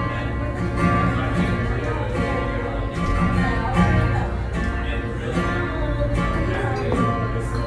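Acoustic guitar played live, strummed in a steady rhythm.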